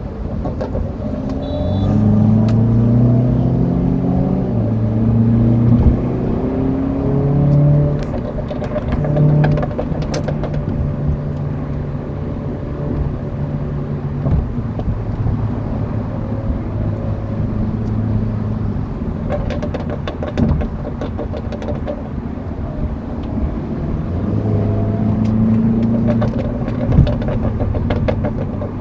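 BMW 340i's turbocharged straight-six exhaust accelerating through the gears, its pitch climbing and dropping back at each shift, with bursts of crackling burbles on the overrun. The engine settles into a steady run midway and picks up again near the end.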